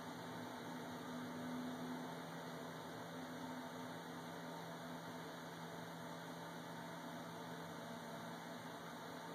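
Steady low hum with an even hiss and no distinct events: background noise, with nothing audible from the hawk's feeding.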